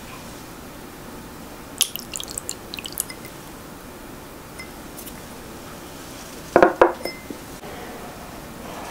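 A small glass bowl clinks lightly against the rim of a pan as vinegar is poured into warm milk, giving a cluster of light clicks and drips a couple of seconds in. Two louder knocks come later, as a silicone spatula meets the pan to stir the curdling milk.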